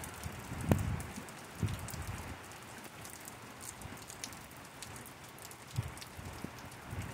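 Steady thunderstorm rain falling and pattering on pavement and nearby surfaces, with scattered drop ticks and a few louder taps, the strongest less than a second in.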